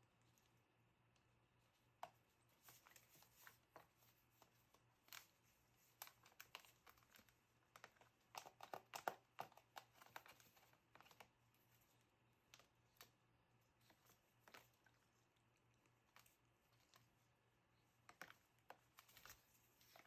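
Faint, irregular clicks, taps and rustles from a small rescued tree sparrow pecking at fingers and scrabbling about, busiest about halfway through.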